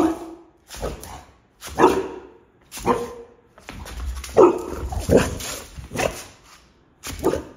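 Boxer dog barking repeatedly, about one bark a second, in play.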